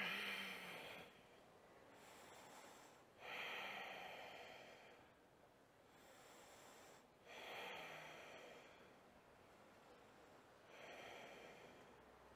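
A person breathing slowly and audibly while holding a standing yoga pose, faint: four breaths a few seconds apart, each starting sharply and fading out.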